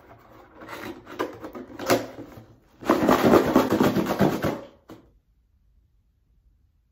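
A cardboard box of borax powder shaken hard for about two seconds, the powder rattling and hissing inside, after a few lighter knocks and rustles of the box being handled.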